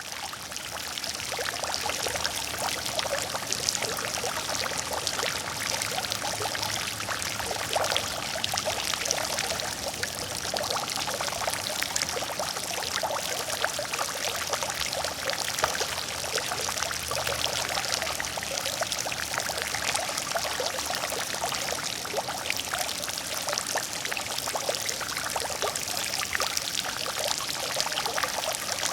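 Water fountain splashing steadily: falling water spattering into a pool, a dense patter of small splashes with no pause.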